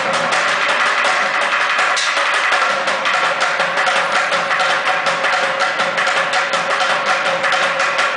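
Bucket drumming: two drummers playing fast with sticks on upturned plastic buckets, a dense, steady stream of sharp hits.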